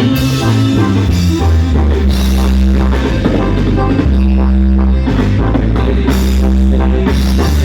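Instrumental break of a ranchera song, with held bass notes and a steady drum beat, between sung lines.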